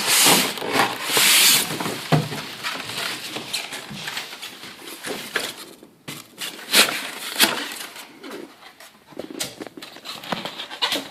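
Packaging rustling and scraping as the carpet cleaner's main body is unpacked and handled. Two loud rustles come in the first two seconds, followed by scattered clicks, knocks and softer rustling.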